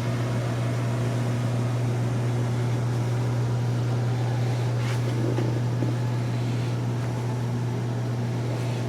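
Yacht cabin air conditioning running: a steady hum with a strong low drone.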